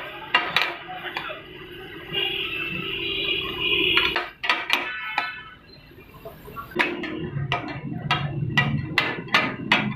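Two metal spatulas striking and scraping a large flat tawa griddle, the taka-tak clatter of mince being chopped and turned. The sharp strikes are scattered at first, then come in a fast even run of about three a second in the second half.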